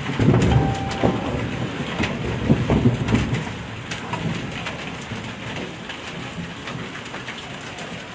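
Hailstorm: hail and rain pelting down in a dense patter of sharp ticks, with a low rumble in roughly the first three seconds that eases into a steadier downpour.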